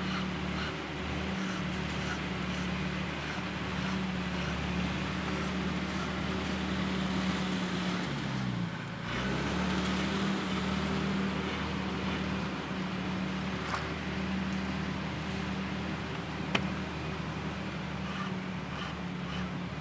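An engine running steadily, its pitch dipping and coming back up about halfway through, with faint rasps of a round file on a chainsaw chain and a sharp click near the end.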